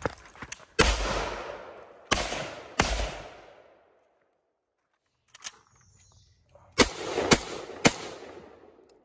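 SKS semi-automatic rifle firing six shots in two strings of three, each shot trailing off in a long echo. There is a faint click just before the second string.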